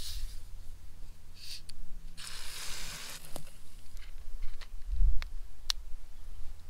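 Plastic soda bottle (Sprite) being twisted open: the pressure hisses out for about a second, with a shorter, fainter hiss just before it, followed by a few light clicks of the cap and bottle being handled.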